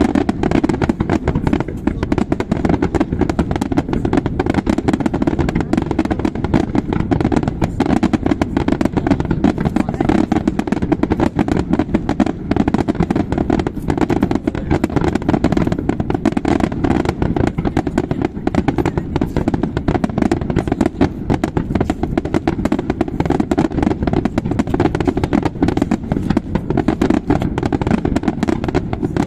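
Aerial fireworks display in a dense, unbroken barrage: rapid overlapping bangs of shells bursting, with crackle between them and no pause.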